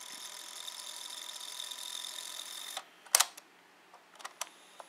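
Walmart onn portable cassette recorder rewinding a tape: a steady, high-pitched motor whine from the transport. It cuts off suddenly a little before the 3-second mark, followed by a sharp click and a few fainter clicks.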